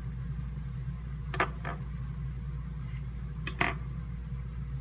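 Small metallic clicks and clinks of hand tools working on the metal deck of a rebuildable vape atomizer: two pairs of sharp clicks, about a second and a half in and again about three and a half seconds in, the second the louder, over a steady low hum.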